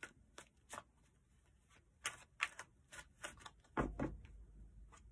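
Tarot cards being shuffled and handled: a faint scatter of light card clicks, with a soft thump about four seconds in.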